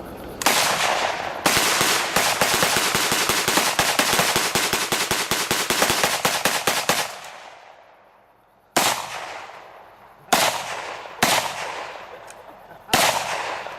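Rifle fire: one shot, then a long burst of rapid fully automatic fire for about five seconds, then several separate single shots, each trailing off in echo.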